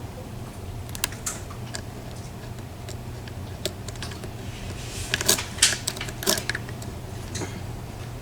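Small sharp metallic clicks and ticks of lock picking tools working the pins inside a PACLOCK 90A padlock, sparse at first and then a quick cluster about five seconds in.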